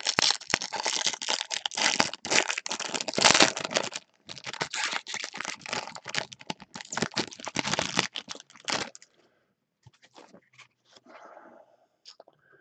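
Shiny foil wrapper of a Topps Chrome trading-card pack being torn open and crinkled by gloved hands, in two long spells of loud crackling about four seconds each, then fainter, scattered crinkles.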